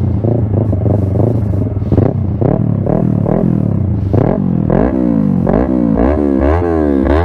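Yamaha R3's parallel-twin engine breathing through an M4 Street Slayer exhaust, revved in quick repeated throttle blips, about two a second, each rev rising and dropping back over a steady low idle.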